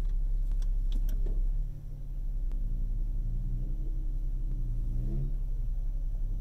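Off-road vehicle engine running with a steady low rumble, rising briefly in pitch as it revs near the end. A few light clicks come about a second in.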